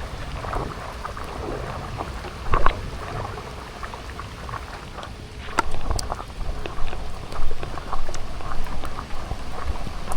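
Rain falling, with many single drops striking close by as sharp taps over a steady hiss. A brief louder spell comes about two and a half seconds in, and the drops grow louder and busier from about halfway through.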